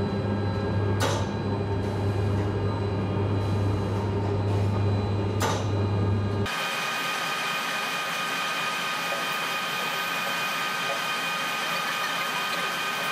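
Confectionery factory machinery running: a steady low hum with two sharp clicks, changing abruptly about six and a half seconds in to a different steady machine noise with several high whining tones.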